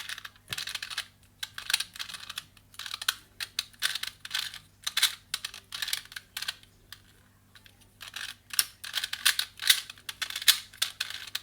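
Plastic 2x2 pocket cube being turned quickly by hand, its layers clicking and clattering in fast runs, with a short pause about seven seconds in.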